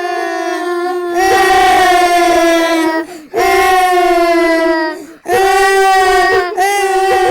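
Small girls crying together in long, loud, drawn-out wails, each held for one and a half to two seconds with short breaks for breath between them, about four wails in all.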